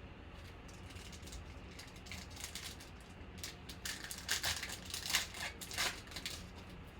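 Trading-card packs and cards being handled: irregular crinkling and rustling of wrapper and cards, thickest about four to six seconds in.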